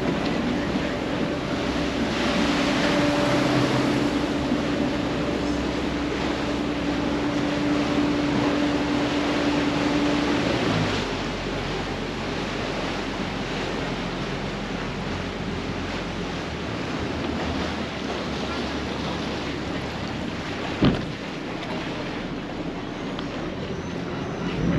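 Wooden motorboat moving along a canal: water rushing past the hull and wind buffeting the microphone over a steady engine hum. The hum drops away about ten seconds in and the wash grows quieter. A single sharp knock comes near the end.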